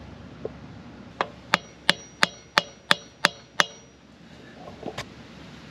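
Hammer tapping a screwdriver that is wedged into the clamp of a Harley Sportster's shift arm: eight quick metallic strikes at about three a second with a ringing tone, then one more strike near the end. The taps drive the screwdriver in to spread the too-tight clamp so the arm can be pulled off the shift shaft.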